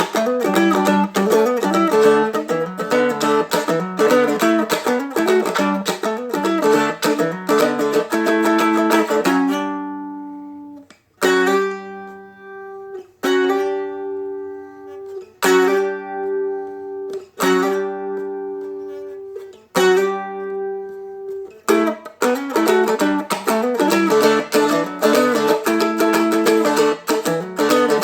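Seagull Merlin, a small four-string fretted dulcimer, played with a flatpick: a fast picked riff, then a run of single chords each struck and left to ring about every two seconds, then fast picking again near the end.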